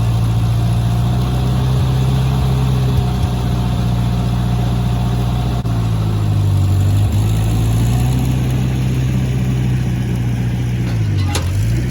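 An engine running steadily at a constant speed. Its pitch dips a little about seven seconds in and sags near the end, just before the sound cuts off abruptly.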